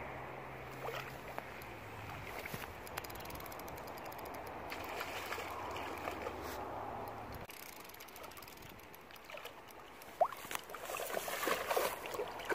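Water splashing and sloshing as a dog wades through a shallow river after a carp and seizes it, loudest over the last couple of seconds. A steady low hum runs under the first half and stops abruptly about halfway through.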